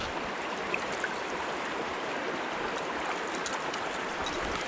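A stream running steadily over rocks, a continuous rushing flow.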